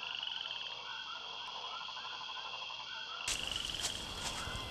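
Woodland ambience: frogs calling in a repeated, pulsing pattern over a steady high insect trill. About three seconds in, a louder outdoor hiss cuts in, and a few short chirps follow near the end.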